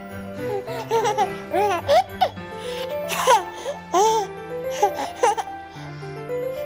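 A baby making a string of short, high squeals and giggles that rise and fall in pitch, over gentle background music.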